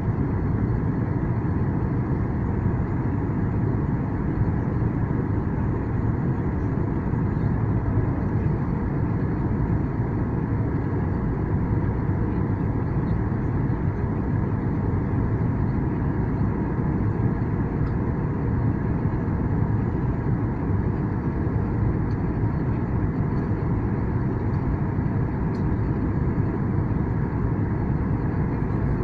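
Steady cabin noise inside a jet airliner during its descent: an even low rumble of engines and airflow with a faint steady hum above it.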